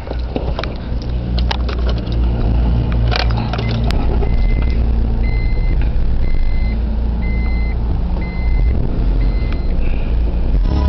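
Steady low rumble inside the cabin of an Acura Legend with its engine running. From about four seconds in, a short electronic chime beeps about every 0.7 s, seven or eight times. A few light clicks of handling come early.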